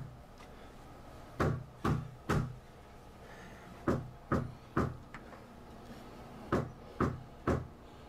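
Knocking on a front door in steady sets of three knocks about half a second apart, with a new set every two and a half seconds or so; three sets in all.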